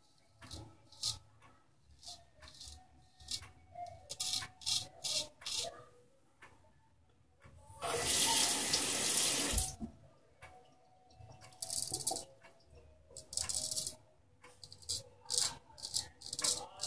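Boker King Cutter straight razor scraping through shaving lather and stubble in a run of short, crisp strokes. About eight seconds in, a water tap runs for about two seconds, the loudest sound here, as the razor is rinsed, then the short scrapes resume.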